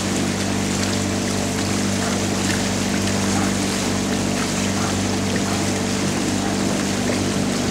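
Outboard motor of a coaching launch running at a steady speed, a constant low hum, over a continuous rush of water.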